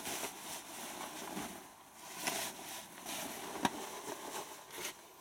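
Clothes being pushed by hand into a front-loading washing machine's drum: fabric rustling and brushing in soft bursts, with one sharp click about three and a half seconds in.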